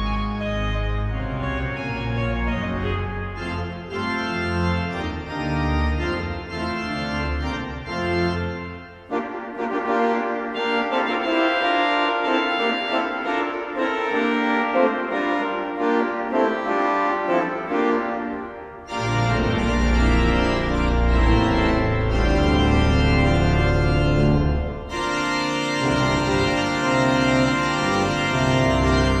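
The 1911 Forster & Andrews pipe organ of Hull City Hall, rebuilt by Compton in 1951, playing a loud fanfare in sustained chords. The deep bass drops out about nine seconds in for a lighter passage, then comes back with brighter full organ about ten seconds later.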